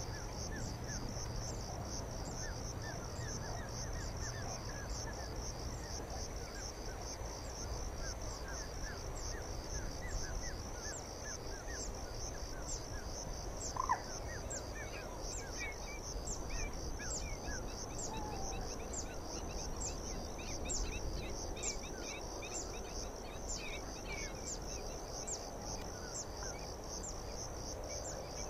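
Insects chirping in a steady, high-pitched pulsing trill, with scattered fainter chirping calls lower down. A low rumble of wind on the microphone sits underneath, and there is one brief louder call about halfway through.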